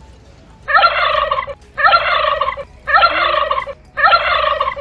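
Monster bird call sound effect: the same roughly one-second bird-like call, looped four times with short gaps, about one a second.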